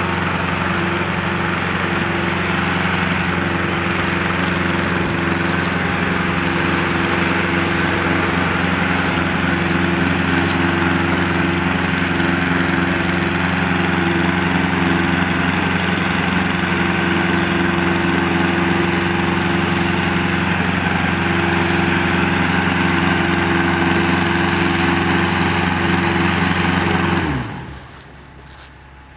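Engine of a small remote-controlled tracked crawler running steadily under load as it tows a modular home section; it drops away abruptly near the end.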